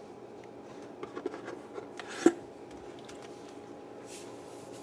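Light kitchen handling noises: a few soft taps and one sharp click a little over two seconds in, over a steady low background hum.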